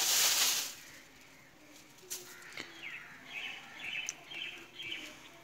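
A short burst of rustling noise at the very start, then birds chirping: a quick run of short, high calls a couple of seconds in.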